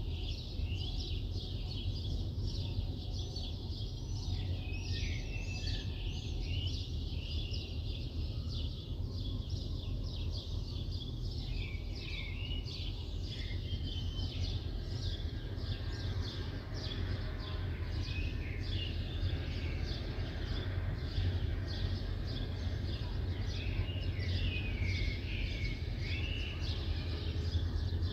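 Morning chorus of small birds, many short chirps and twitters overlapping without a break, over a steady low rumble of city background noise.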